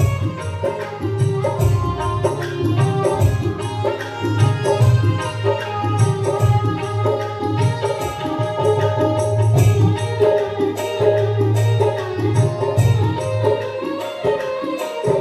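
Indian film-style song music with tabla-like hand-drum percussion keeping a steady rhythm over a heavy bass line, played loud.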